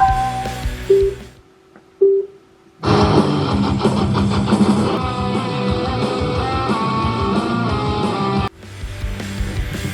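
Guitar music that breaks off, with two short beeps about a second apart in the gap. A dense, strummed guitar track then comes in and is cut off abruptly, giving way to a different piece of music.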